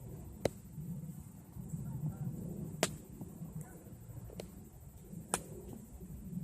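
Drips from the rain ticking sharply on gear close to the microphone: three loud ticks a couple of seconds apart among fainter ones, over a low steady rumble.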